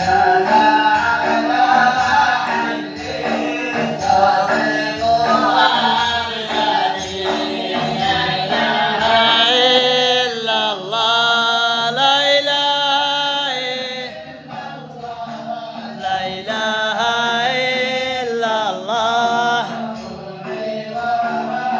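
A group of men singing a devotional mawlid chant together, with gliding, drawn-out vocal lines over a steady beat.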